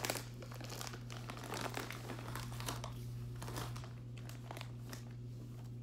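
Plastic snack bag of Muddy Buddies Chex Mix crinkling and rustling in irregular bursts as it is handled, over a steady low hum.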